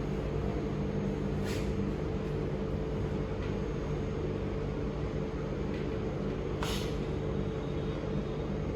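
Steady low mechanical hum made of a few even tones, with two faint brief rustles, one about a second and a half in and one near the end.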